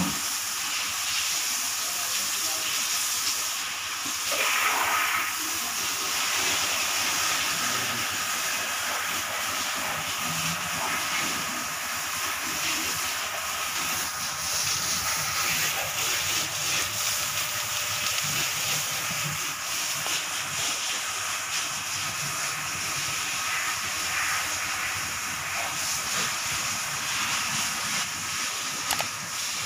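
A steady hiss, with a brief louder sound about four to five seconds in.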